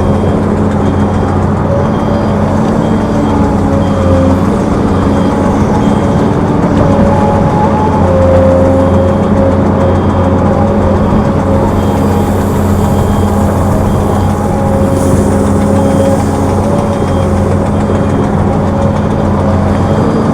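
Heavy diesel machinery running steadily: the engines of excavators and dump trucks make a constant low drone with a few engine tones that shift slightly in pitch.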